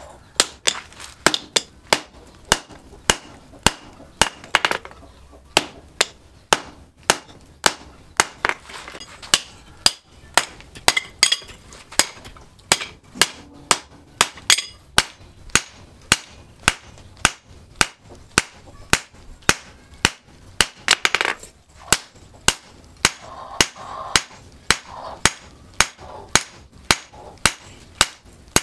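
Hand hammer forging a red-hot axe head, made from car-axle steel, on a steel anvil post. Steady, sharp blows come about twice a second.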